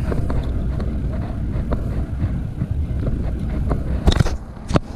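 Spinning reel cranked to bring in a hooked fish, heard as close rustling and small clicks over a low rumble, with two sharp knocks near the end.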